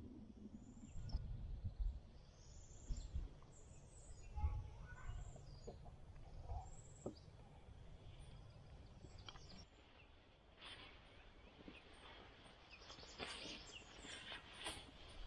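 Faint bird chirps and calls, several in the first half, over low irregular rumbling; from about ten seconds in, a run of short rustles and clicks.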